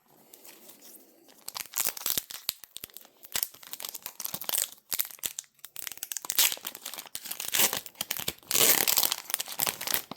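Foil Pokémon booster pack wrapper being torn open and crinkled: a run of sharp crackles and rustles, with a longer, louder tearing stretch near the end.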